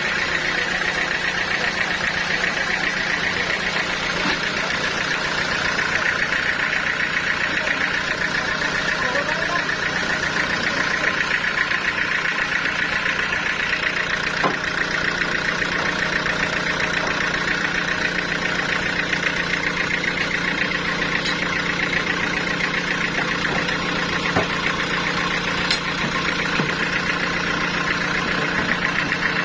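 Sawmill machinery running steadily: a continuous low engine drone with a steady high hum over it, unchanging throughout.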